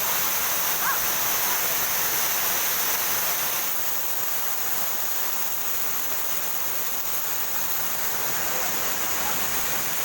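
Waterfall rushing: a steady hiss of falling water, a little quieter after about four seconds.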